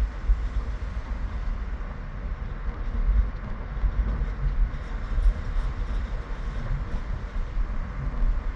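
Wind buffeting the microphone in gusts, a heavy low rumble that swells and dips unevenly.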